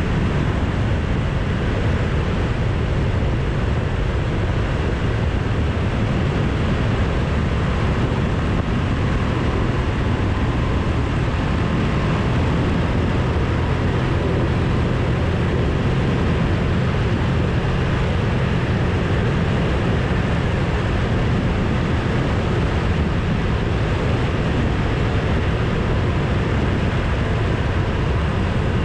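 Suzuki V-Strom 1000 motorcycle cruising at a steady road speed: its V-twin engine drones under a constant rush of wind over the handlebar-mounted microphone, with no change in speed or revs.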